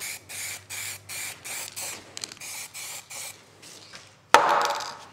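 Matt black paint spraying in short hissing bursts, about three a second. The spraying stops after about three seconds. Near the end comes a sudden loud knock, the loudest sound, with a short rush of noise after it.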